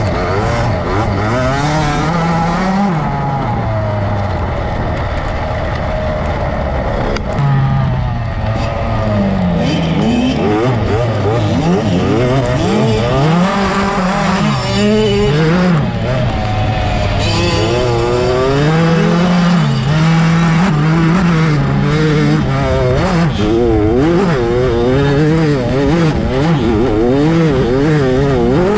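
GasGas MC65's 65cc two-stroke single-cylinder engine racing, its pitch climbing and dropping over and over as the throttle is worked and gears change.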